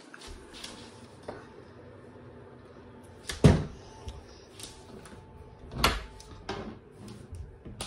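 Interior doors being handled and a closet door opened: a few knocks and thuds, the loudest about three and a half seconds in and another near six seconds.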